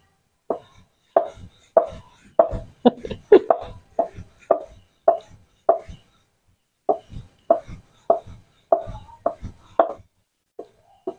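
Wooden rolling pin rolling out stiff spinach dough on a round wooden board, giving an even run of wooden knocks, about one and a half a second, with a short pause about six seconds in.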